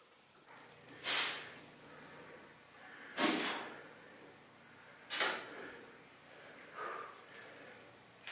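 A man exhaling hard in sharp, hissing breaths, one about every two seconds, as he strains through exercise reps.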